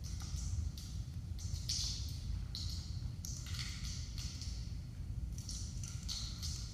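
Bare feet brushing and sliding on a wooden floor in soft, irregular swishes, over a steady low room rumble.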